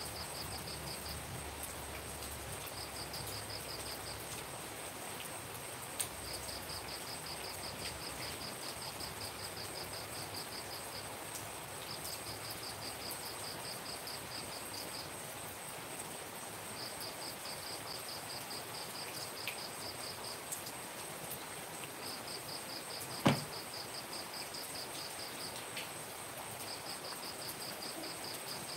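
Steady hiss of rain with insects: a cricket chirps in runs of a few seconds at about four to five chirps a second over a steady high insect whine. One sharp knock comes about two-thirds of the way through and is the loudest sound.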